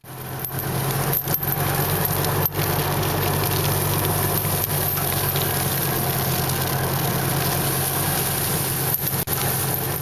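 Golf cart running steadily while towing a logging chain drag over pasture ground, a low even motor hum under a dense rattling and scraping haze.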